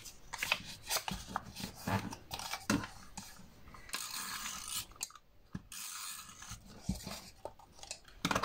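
Paper and cardstock being handled, rubbed and pressed while a small scrap piece is glued onto a paper box. The rustling and scraping come with scattered small taps and clicks.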